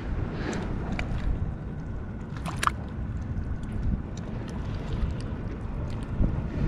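Wind rumbling on the microphone over the wash of waves against the rocks, with a few light clicks and taps.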